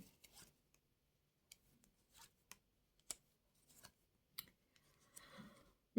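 Near silence broken by a few faint, scattered clicks and soft taps: playing cards being drawn from the deck and laid down.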